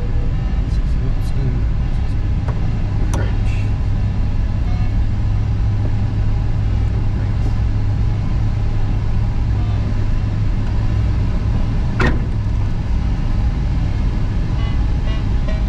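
Steady rush and low rumble of airflow around a glider cockpit in flight, with a couple of sharp clicks, the clearer one about twelve seconds in. Near the end a rapid run of short repeated beeps starts.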